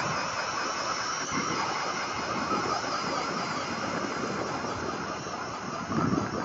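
Ryobi 18V brushless half-inch drill/driver in low gear, its motor and gearbox whining steadily under load as it turns a K-Drill ice auger, the blades grinding down through thick ice. There is a brief louder surge about six seconds in.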